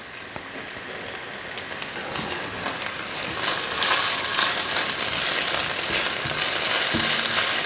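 Food sizzling in a frying pan on a hob, stirred and scraped with a spatula. The sizzle gets thicker and louder about three seconds in, with small clicks from the spatula.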